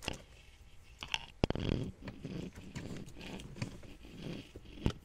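Black electrical tape being pulled off its roll and wrapped around a wiring harness: a few sharp clicks, and in between short, uneven rasping pulls as the tape peels away.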